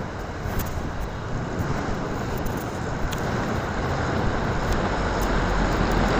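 A moving motorcycle heard from the rider's position: a steady rush of engine, road and wind noise that grows gradually louder over the last few seconds.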